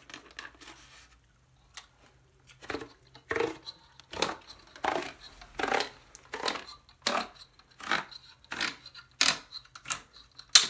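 Cardboard paper-towel tube crunching as it is worked through a crimper: about a dozen short crunches, a little under one a second, starting about two seconds in. It is the sound of a pretty decent crimp.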